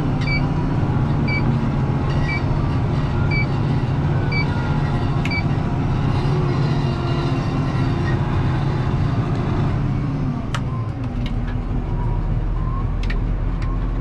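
Deutz-Fahr 6185 TTV tractor engine running steadily, heard from inside the cab, with a short electronic warning beep repeating about once a second for the first five seconds. About ten seconds in, the engine note falls and a few sharp clicks follow.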